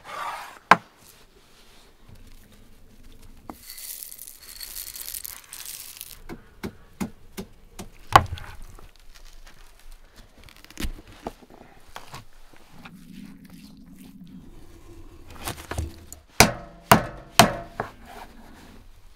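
Food-preparation sounds on a wooden board: scattered sharp knocks, the loudest a quick run of three near the end as a knife cuts mutton fat against the board, and softer knocks as a pestle crushes garlic cloves. A brief hissing rustle of handled raw meat comes a few seconds in.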